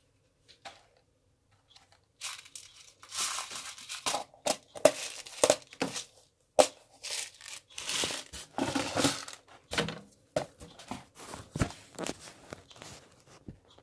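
Clear plastic bags and a plastic bead box being handled: crinkling and rustling plastic with sharp clicks and knocks, starting about two seconds in.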